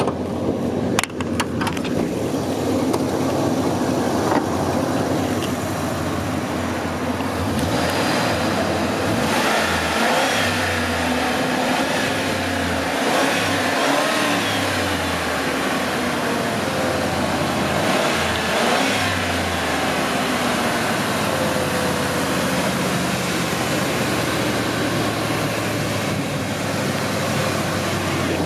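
Motor vehicle engine running, a steady drone whose low note wavers up and down through the middle stretch.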